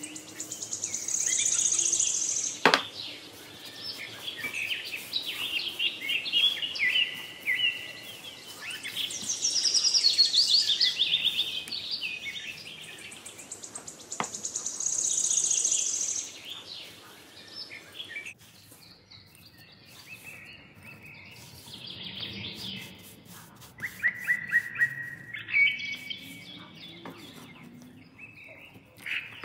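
Songbirds chirping and trilling in repeated high phrases, fading for a few seconds about two-thirds of the way in and then resuming. Two sharp knocks sound over them, one early and one about halfway.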